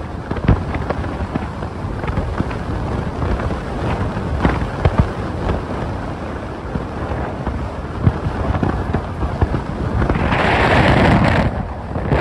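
Wind buffeting the microphone of a phone held out of a moving car's window, a steady rush with many sharp pops and rumbles over road noise. About ten seconds in the rush swells louder for a second and a half.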